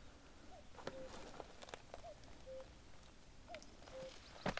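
A bird's faint two-note call repeated about every second and a half, the second note lower and held a little longer. A few light clicks sound between the calls, the sharpest near the end.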